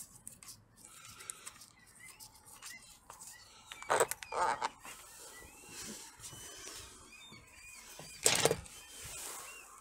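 Small birds chirping in the background, with two short rustling noises, about four seconds in and again near the end, the louder of the sounds.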